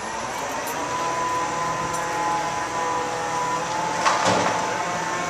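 Heavy machinery engine running steadily with a whining tone, and a brief noisy burst about four seconds in.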